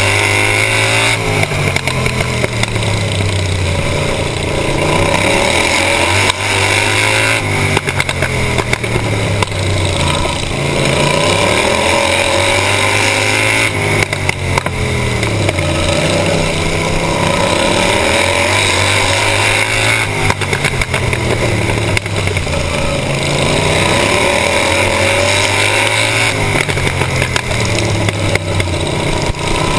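Racing kart's small engine running hard, heard from the driver's seat: its pitch climbs on each straight and drops as it slows into each turn, rising and falling about every five to six seconds lap after lap.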